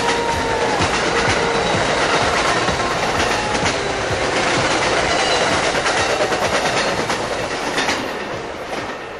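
A passenger train passing at speed, its wheels clacking over the rail joints. The sound starts to fade near the end as the last car goes by.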